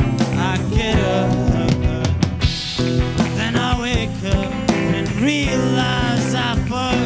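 A live rock band playing: electric guitars over a drum kit keeping a steady beat.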